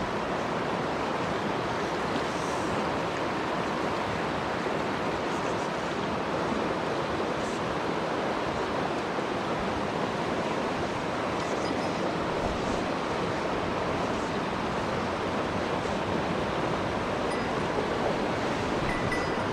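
Mountain stream water rushing, a steady, unbroken wash of noise.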